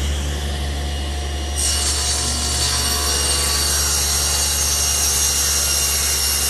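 Table saw running, its blade cross-cutting a glued-up oak panel fed on a homemade panel-cutter sled. A steady motor hum lies under the cut, and the blade's higher cutting noise comes in about a second and a half in and holds steady.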